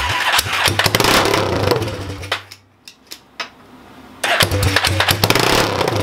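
Yamaha Warrior 350 quad's single-cylinder four-stroke engine catching and sputtering as it is started, in two short rough bursts of running with rapid popping. It dies out for about two seconds in between.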